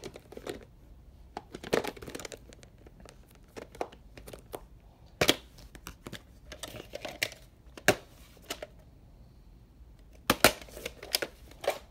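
Hands handling a plastic clamshell VHS case and its cassette: irregular clicks and rustles with several louder plastic snaps as the case is opened and the tape is taken out.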